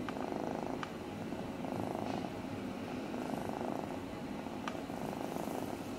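Ginger kitten purring steadily while being stroked, the purr swelling and easing with each breath about every second and a half. A couple of faint clicks sound in the middle.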